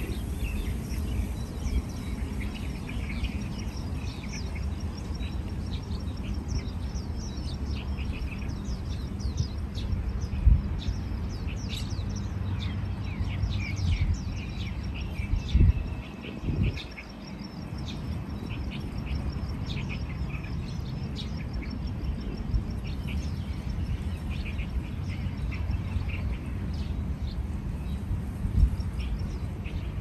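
Many small birds chirping and calling, short rapid notes scattered throughout, over a steady low rumble. A few dull thumps stand out, at about ten seconds, near the middle and near the end.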